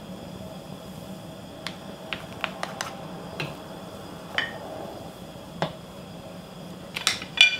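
Wooden spoon clicking and tapping against a wooden ladle and the pot as doenjang is stirred into foaming broth: about ten short, sharp knocks at irregular intervals, the loudest two near the end, over the steady sound of the pot boiling.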